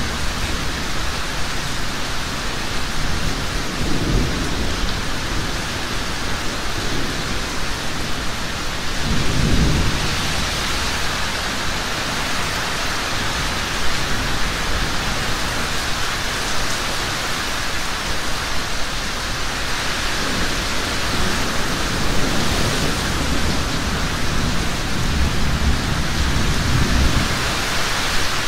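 Heavy rain falling steadily, with several low rolls of thunder, the strongest about ten seconds in and more toward the end.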